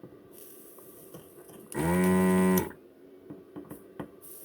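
Electric desoldering gun's vacuum pump buzzing steadily for just under a second, starting a bit under two seconds in, as it sucks molten solder from a circuit-board joint. Faint small clicks come before it.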